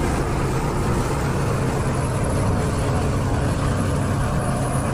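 McCormick farm tractor's diesel engine running steadily under load as it pulls a tillage implement through the soil.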